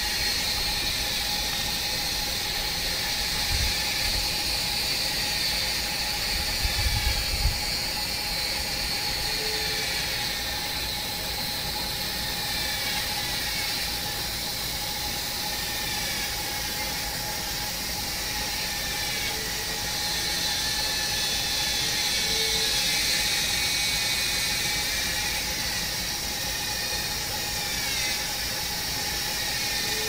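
A steady, high-pitched buzzing, rattling drone, with two brief low thumps in the first several seconds.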